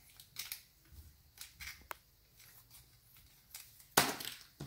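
A small plastic blind bag being handled and opened: scattered light crinkles and snips, with a louder burst of crinkling about four seconds in.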